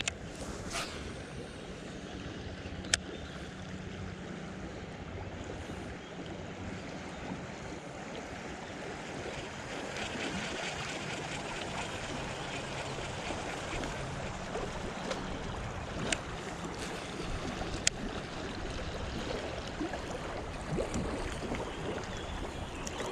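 River water running steadily around a kayak, with a few sharp clicks.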